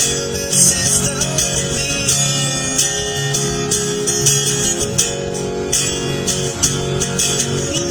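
Music: a composition with plucked-string or guitar-like tones over sustained notes and a steady rhythm of high percussive hits.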